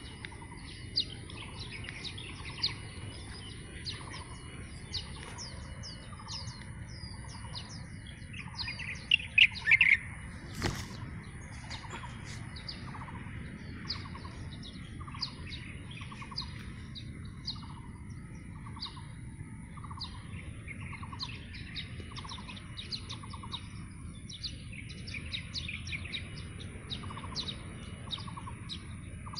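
Dawn chorus of many small birds chirping and tweeting in a mixed chorus, with one repeated lower call about once a second and a louder burst of calls about nine seconds in. A steady high-pitched insect drone runs underneath, and there is a single sharp click just after the louder burst.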